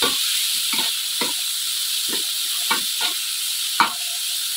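Long beans and carrots sizzling in a wok while a metal spatula stirs them, scraping and knocking against the pan at irregular intervals, with one sharper clank near the end.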